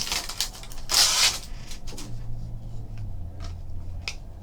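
Rustling of trading-card packaging and cards being handled, loudest about a second in, followed by a few light clicks over a steady low hum.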